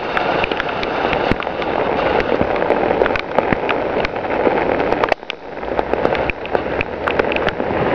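Steady rain hissing, with many sharp crackling drop clicks close to the microphone; it eases briefly about five seconds in.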